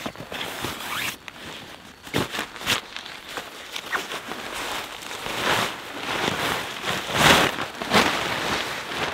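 Nylon fabric of a camping tarp and its stuff sack rustling and swishing as the tarp is pulled from a backpack and shaken out, with several louder swishes in the second half, the loudest about seven seconds in.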